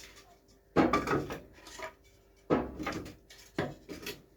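Handling noise as a fireplace is readied for lighting: three short bursts of rustling and clattering, about a second apart, with quiet in between.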